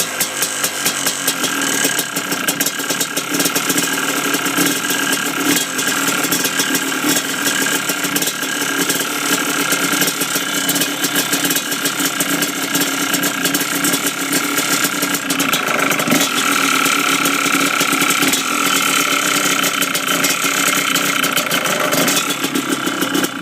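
Yamaha Blaster's single-cylinder two-stroke engine running with a rapid rattling knock, which the owner suspects is piston slap. A little over halfway through the engine note rises slightly, and the sound cuts off suddenly at the end.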